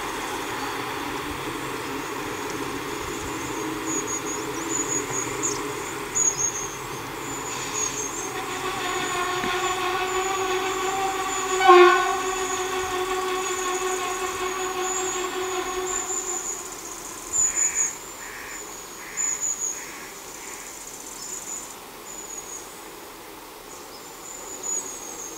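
Diesel railbus running deep inside a rail tunnel, its drive heard as a steady pitched drone with many overtones, echoing out of the tunnel mouth. The drone swells about a third of the way in, peaks briefly, then fades as the railbus draws away. Insects chirp high and continuously throughout.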